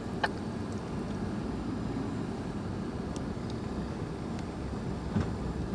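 A Jeep driving, heard from inside the cabin: a steady low rumble of engine and tyres, with a single sharp click shortly after the start.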